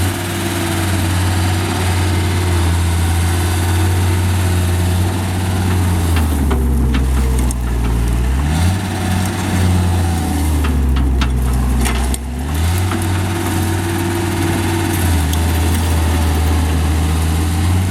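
John Deere CT332 compact loader's diesel engine running steadily. Its speed drops and recovers twice, about six and eleven seconds in, with some clanking during the dips.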